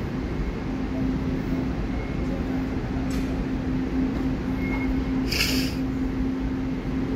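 Underground railway station platform ambience: a steady low rumble with a constant hum, and a short hiss about five and a half seconds in.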